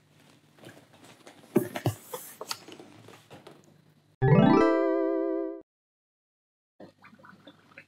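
Short intro jingle sting: a pitched tone that slides up and then holds with a slight warble for just over a second before cutting off abruptly. Faint handling and rustling noises come before it.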